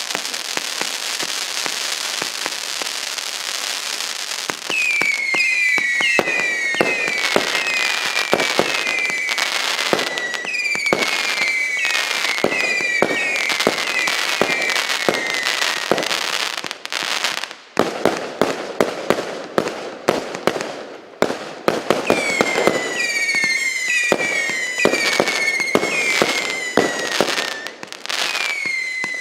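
A 169-shot, 0.8-inch consumer fireworks battery firing. It starts with a dense hiss and crackle, then gives rapid bangs overlapped by many short whistles that fall in pitch. It quietens briefly about 17 seconds in before the bangs and whistles resume.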